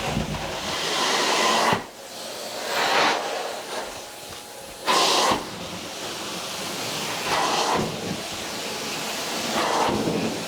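Truckmount carpet-cleaning wand hissing as it sprays and sucks up water, swelling and dropping with each stroke about every two seconds.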